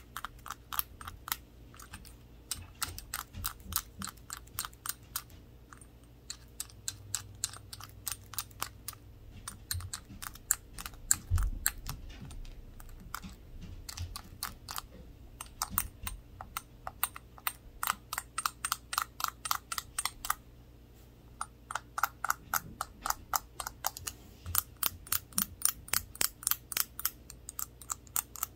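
Fast light tapping on a small glass shot glass with toothpick gloves: quick ticks, about five a second, in runs with short pauses. Some taps make the glass ring faintly. One heavier knock comes about eleven seconds in.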